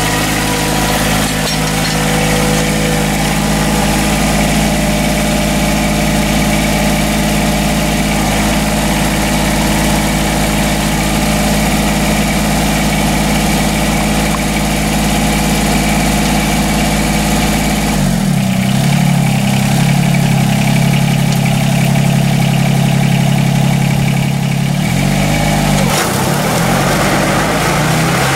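Tractor engine running steadily. About 18 s in, its note shifts as the engine speed changes, and it wavers again about 26 s in.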